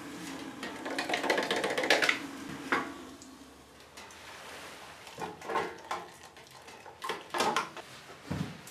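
Hot water poured from an aluminium kettle into an aluminium camping mug, with metal clinks and knocks as the mug and kettle are handled and set down. The busiest clattering comes in the first two seconds, and a few separate knocks follow later.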